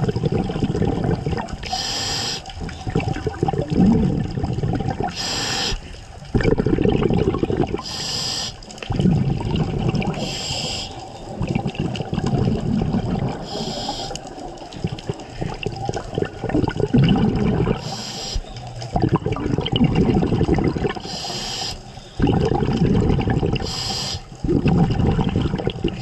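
Scuba diver breathing through a regulator underwater: a short hiss on each inhale, then a long bubbling rumble as the exhaled air escapes. The cycle repeats about every three seconds, eight breaths in all.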